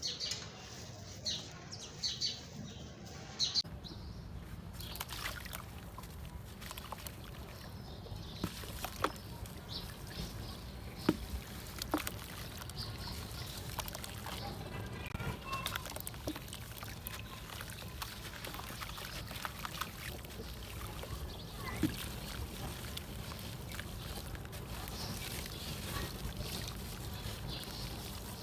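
Chunks of red dirt and concrete crumbling and breaking apart in water: a steady wet slosh and trickle with scattered sharp cracks and knocks.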